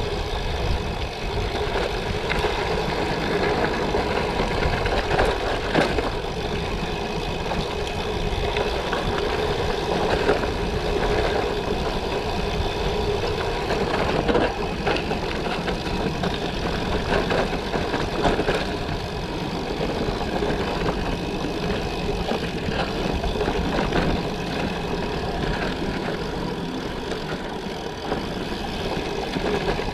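A gravel bike rolling over gravel: a steady crunching rumble from the tyres, with small irregular knocks and rattles as it rides over bumps.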